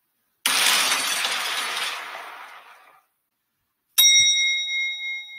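Cartoon sound effects: a sudden loud crash, like glass breaking, that fades away over about two and a half seconds, then a single sharp metallic ding that rings on for about a second.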